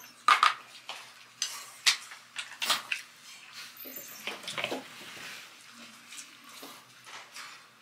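A person eating spicy jjamppong noodles: a series of short slurps and sharp breaths through the mouth, the loudest about a third of a second in, with light knocks of wooden chopsticks against a paper cup.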